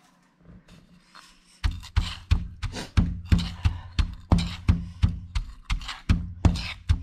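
Stone pestle pounding a moist chili, salt and sugar paste in a granite mortar: a steady run of dull thuds, about three a second, starting about a second and a half in.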